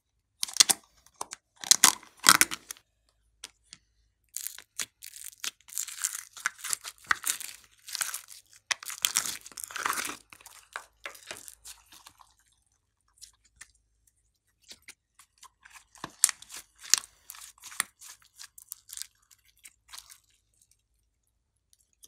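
Sticky green glitter slime being pulled, pressed and squeezed by hand, giving off irregular wet crackling and clicking in bursts. The bursts stop for a few seconds past the middle and then pick up again.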